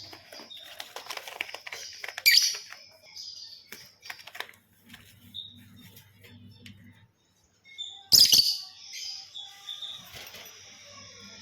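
Lovebirds chirping and moving about in their cage, with two loud, brief bursts of noise, about two seconds in and again about eight seconds in.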